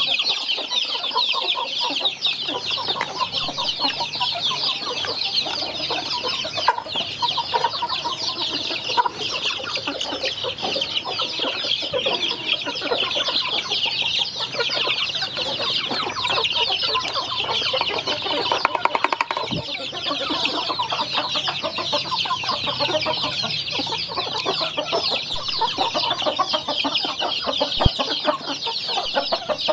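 A crowd of young chicks peeping continuously, many short high-pitched calls overlapping without a break while they feed.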